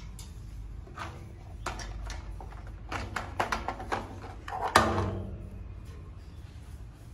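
Plastic toy dump truck and its detached dump bed being handled on a steel diamond-plate stair: a series of clicks and knocks, the loudest about five seconds in with a short ringing decay.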